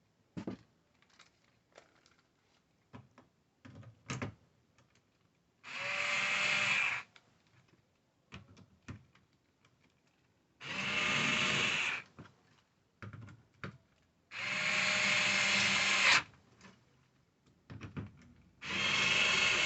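Electric screwdriver driving screws, running in four separate spurts of one to two seconds each, with small clicks and knocks of handling between them.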